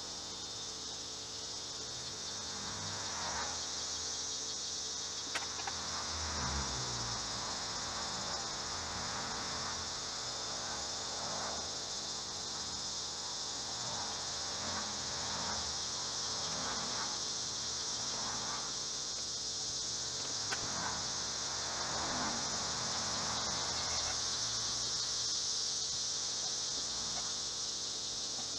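Steady chirring of crickets, with repeated swishing strokes of a cloth rubbing polish by hand over the hard plastic filler panel, about one stroke a second.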